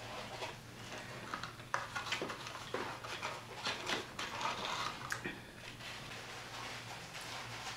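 Eating sounds: chewing and handling food, a scatter of irregular clicks and smacks over a steady low hum.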